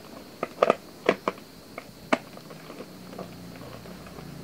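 A hand screwdriver turning out the screw that fixes a diecast model car to its box's mounting plate. It gives about six sharp clicks in the first two seconds, then goes quiet apart from faint scraping.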